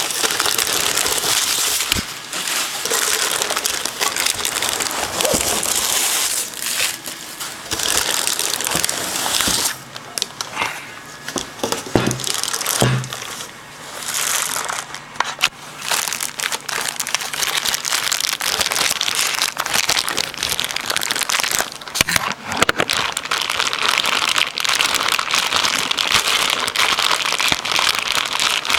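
Packaging crinkling and rustling as it is handled, with many small sharp crackles throughout.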